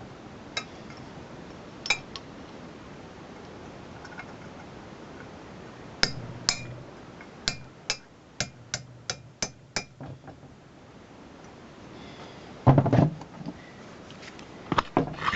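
A hammer tapping a punch to drive hammer-drive rivets out of a metal spec plate from behind: sharp metallic taps, first a few spaced apart, then a quick run of about eight. A duller, heavier knock comes near the end.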